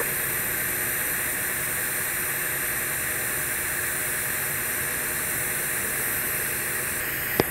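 TIG welding arc on a Monel 400 pipe root pass, running with a steady hiss as the torch walks through the tack. A small click near the end.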